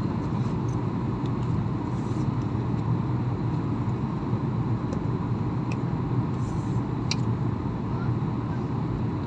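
Steady low drone of an airliner's engines and airflow heard inside the passenger cabin during the descent, with a few faint clicks.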